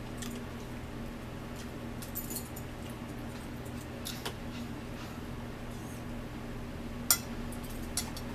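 Forks and spoons clinking and scraping on a plate and a bowl while eating, a few scattered sharp clicks, the loudest about seven seconds in. A steady low hum runs underneath.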